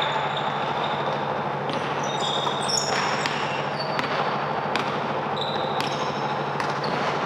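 Basketball game sounds: sneakers squeaking in short high chirps on the court floor and a basketball bouncing in occasional knocks, over a steady hum.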